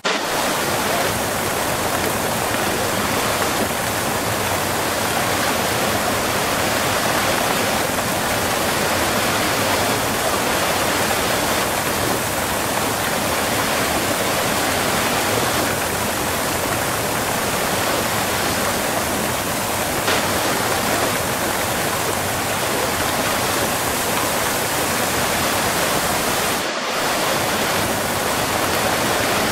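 Waterfall heard close up: a steady, dense rush of falling water, with a momentary dip in level near the end.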